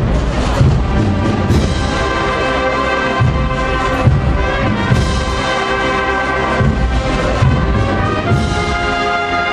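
Live processional marching band playing a Holy Week march: a brass melody over drum beats.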